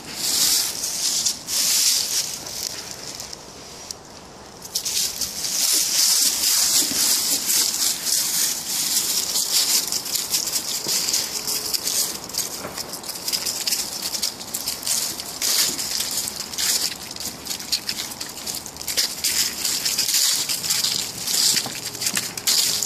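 Dry fallen leaves crackling and rustling as a Bichon Frise walks and sniffs through them, a dense run of fine crisp crackles. It eases off briefly about three to four and a half seconds in, then picks up again.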